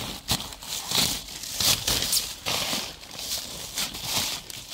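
Plastic bags and packaging crinkling and rustling in irregular bursts as a hand rummages through them in a dumpster.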